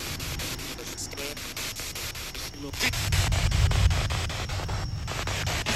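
SB7 spirit box radio sweeping through stations: choppy static cut into short slices about ten times a second, with brief fragments of broadcast voices. A low rumble swells about three seconds in and is the loudest part.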